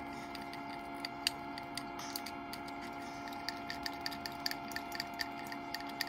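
Small, irregular metallic ticks as a loosened 7 mm nut is spun off its stud by hand on an ice-machine water pump housing, over a faint steady hum.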